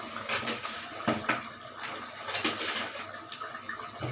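Tamarind gravy boiling in a pan with a steady bubbling, with a few short sharp clicks.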